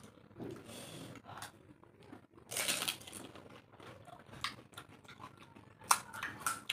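Crisp pani puri shells cracking and being crunched and chewed, in irregular bursts; the loudest crunch comes about two and a half seconds in, with two sharper cracks near the end.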